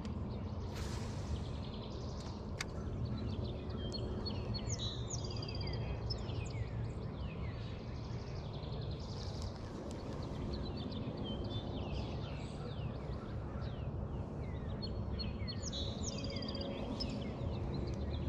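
Songbirds chirping and calling over and over, short falling chirps and brief high whistles, over a steady low background rumble.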